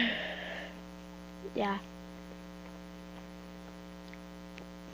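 Steady low electrical hum, with a short breathy rush of noise in the first half-second.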